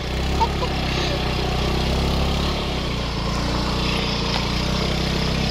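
Motorcycle engine running steadily under way, a constant low drone.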